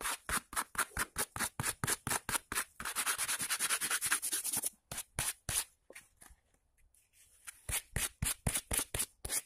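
A hand rubbing briskly over a freshly toned carved wooden wolf-head relief, wiping back the toning on the raised parts around the eye to bring out highlights. Quick rubbing strokes, about five a second, pause for a couple of seconds past the middle and then start again.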